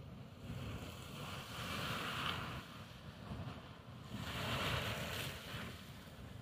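Grotto Geyser erupting: a steady rush of splashing water and venting steam over a low rumble, swelling louder twice.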